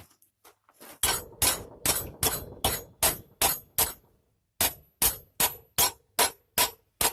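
Sledgehammer repeatedly striking a thin steel strip (a wine-barrel hoop about a millimetre thick) to bend it: about fifteen ringing metal blows at roughly two and a half a second, with a brief pause about four seconds in.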